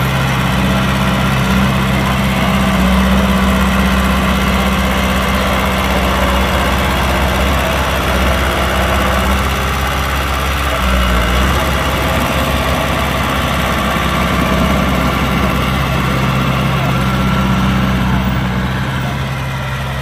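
Heavy diesel engine of earthmoving equipment running steadily at low revs, with a brief change in its note about halfway through.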